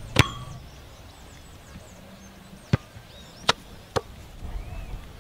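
A football being kicked on a grass field: four sharp thuds of boot striking ball, a loud one just after the start and three more in the second half, the last two about half a second apart.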